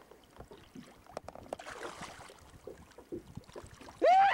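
Faint water splashing and small knocks at the side of a boat while a bass is lifted out of the water by hand. About four seconds in, loud excited whooping and yelling starts suddenly.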